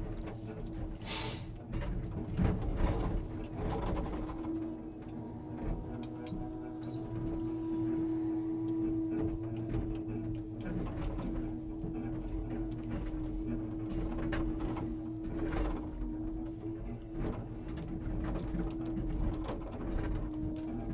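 Timber truck's hydraulic loader crane working, with a steady whine and low rumble throughout and a few knocks as logs are handled.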